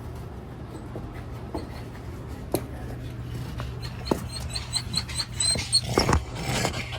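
Pet dog giving a run of short, high-pitched whimpering squeaks, mixed with rustling and small knocks from being handled and petted.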